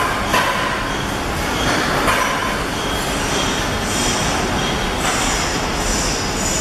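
Workshop machinery noise from running packaging machines: a steady mechanical din with irregular clatters, joined by high-pitched whines from about four seconds in.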